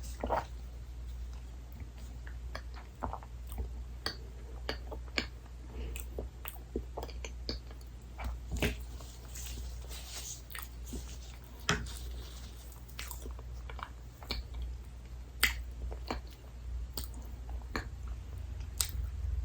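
Close-miked eating sounds of soft dessert: wet chewing with scattered sharp mouth clicks and a few bites.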